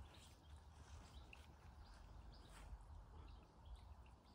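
Near silence: faint garden ambience with a low rumble and a few faint bird chirps.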